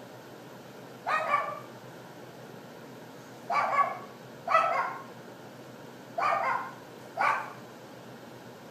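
A dog yapping: five short, sharp barks at uneven gaps of one to two seconds.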